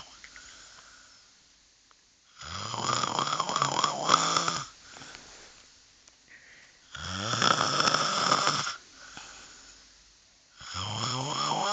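A person snoring loudly: three long snores about four seconds apart, each starting with a rising pitch, with quieter breaths between them. The third is still going at the end.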